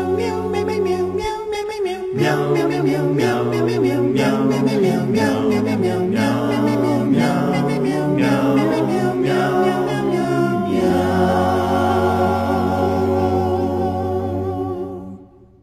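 Background music: an a cappella song of layered voices over held bass notes, with quick rhythmic sung syllables in the middle, fading out just before the end.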